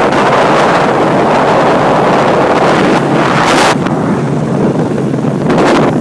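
Heavy wind noise buffeting the microphone aboard a 45 ft sampan fishing boat under way, over the steady rush of the boat's running and the water. A louder, hissing rush comes about three and a half seconds in, and another shorter one near the end.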